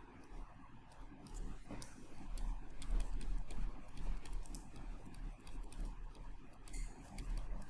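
Stylus tapping and scratching on a tablet screen while handwriting, a run of quick, irregular light clicks.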